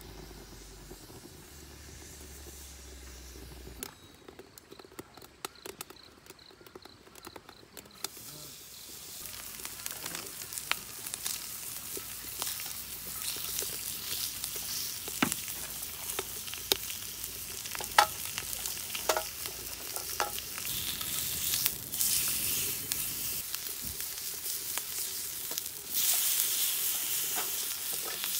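Slices of meat frying and sizzling in a frying pan set on a homemade wood-burning rocket stove. The sizzle builds from about eight seconds in and grows louder near the end, with occasional sharp clicks of metal tongs against the pan.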